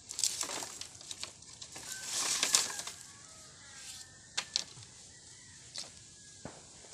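Dry banana leaves and twigs rustling and crackling as they are handled, around bamboo tubes set out for roasting, in irregular bursts with a few sharp snaps.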